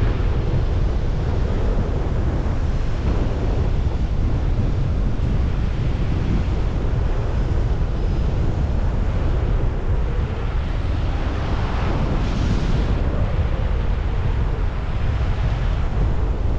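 Strong wind buffeting a GoPro's microphone: a loud, steady low rumble, with a brief rise in hiss about twelve seconds in.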